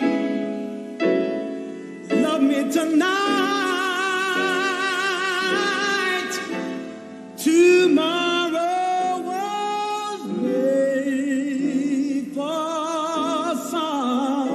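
A male soul or gospel singer sings held notes with wide, even vibrato and quick melismatic runs, over sustained chord accompaniment.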